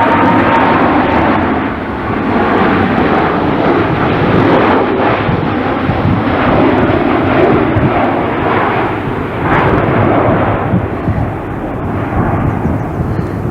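Boeing 737 MAX 8-200 airliner coming in to land, its CFM LEAP-1B turbofan engines giving a loud, steady jet rumble, with a faint whine in the first second.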